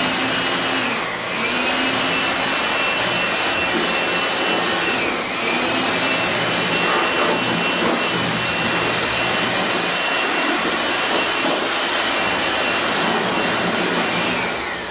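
Jakmister 700 W handheld electric air blower running at full speed while blowing dust off a wooden dressing table: a steady rush of air over a high motor whine. The whine dips briefly twice and winds down near the end as the blower is let off.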